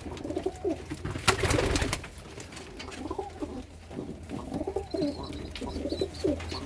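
Serbian highflyer pigeons cooing over and over, with a brief loud rustle about a second in.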